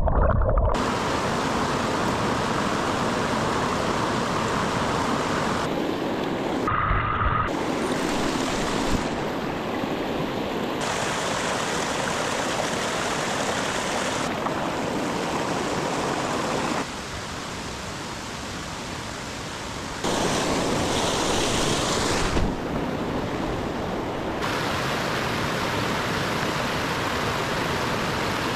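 Running water of a mountain stream, a steady rush that jumps in level and tone several times where the shots change.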